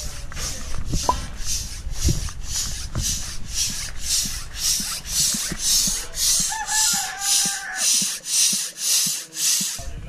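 A rooster crowing once, a wavering call of about a second and a half roughly two thirds of the way in, over a rasping hiss that repeats about two and a half times a second.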